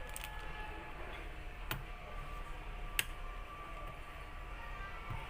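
A few sharp clicks of tools and plastic parts on a laptop's case being opened, the loudest about three seconds in, over a steady low hum.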